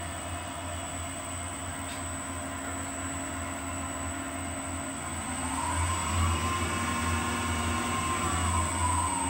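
General 260 wood lathe running on an electronic variable-speed motor control, with a steady hum. About five seconds in, a motor whine rises as the speed dial is turned up, holds steady, then begins to fall near the end as the speed comes back down.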